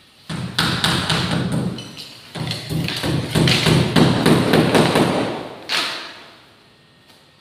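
Knocking, thudding and clattering from ceiling boards being worked loose overhead, a quick run of sharp knocks that eases briefly, then grows loudest and ends on one last sharp knock.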